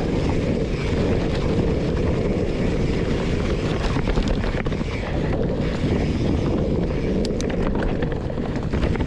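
Wind buffeting the microphone of a camera on a mountain bike rolling fast down a leaf-covered dirt trail, a steady low rush mixed with tyre and frame rumble. A few sharp rattling clicks come about seven to eight seconds in.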